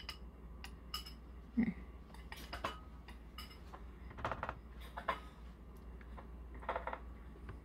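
A metal spoon clinks and scrapes against a ceramic bowl as an egg mixture is poured out, then a silicone spatula stirs thick zucchini batter in a plastic mixing bowl. The sound is irregular light clinks and taps.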